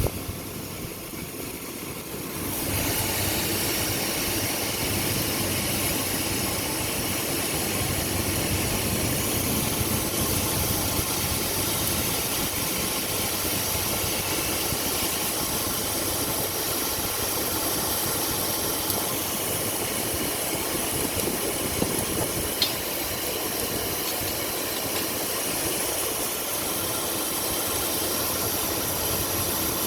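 Submerged-arc hardfacing equipment running steadily with a hiss, the noise stepping up about two and a half seconds in.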